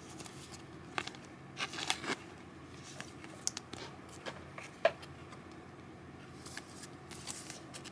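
Trading cards and plastic card sleeves being handled on a table: scattered soft rustles and light taps, the sharpest tap about five seconds in.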